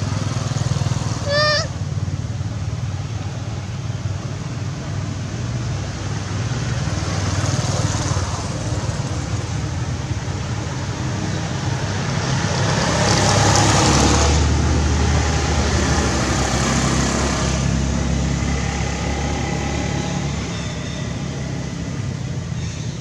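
Motor traffic: a steady low engine rumble, with a passing vehicle swelling up and fading away near the middle. A short high-pitched call sounds about a second and a half in.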